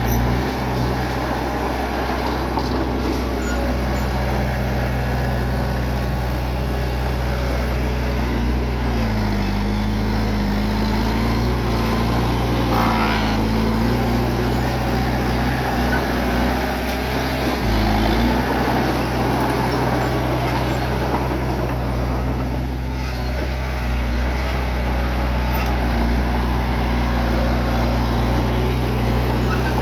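Bulldozer diesel engine running steadily. Its note drops for several seconds about a third of the way in, then picks back up.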